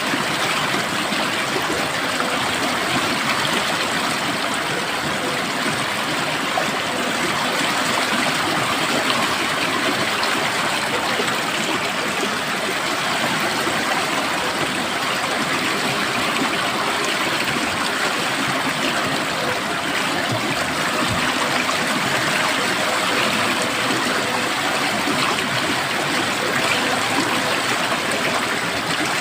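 Stream water flowing and trickling, a steady even rush with no breaks.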